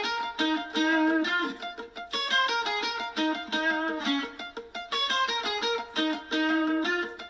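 Instrumental intro of a pop song: a plucked guitar riff, a quick phrase of picked notes repeated about every two and a half seconds.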